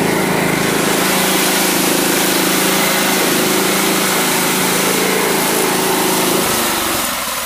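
John Deere riding lawn mower's engine running steadily under way. Near the end its note changes and starts to die down as it is throttled back.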